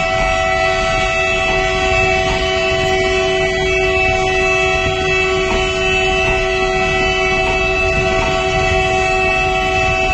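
Train horn held in one long, steady blast of several tones at once, over the low rumble of a moving train. The horn cuts off right at the end.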